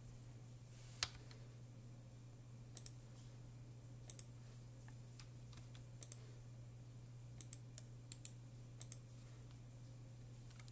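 Computer mouse clicking: about nine sharp clicks, many in quick pairs, spaced a second or so apart, over a steady low hum.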